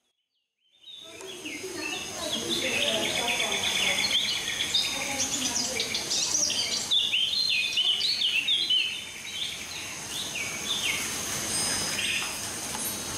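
Recorded birdsong with an insect chorus from a theme-park attraction's sound system. It starts about a second in: many quick rising and falling chirps over a steady high trill.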